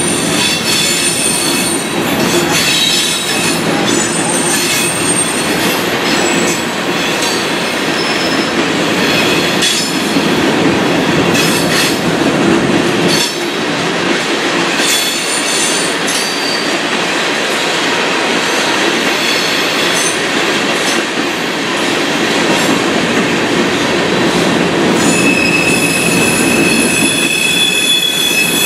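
Freight train's covered hopper cars rolling past close by: a steady rumble of steel wheels on the rails, with high-pitched wheel squeal that comes and goes and occasional clicks from the wheels. A steadier squeal sets in near the end.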